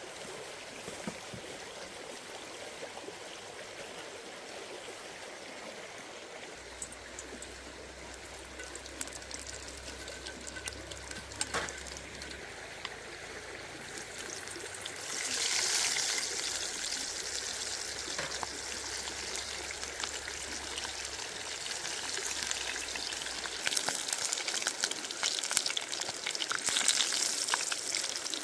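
Water trickling and running, turning louder and more hissing about halfway through, with small scattered clicks near the end.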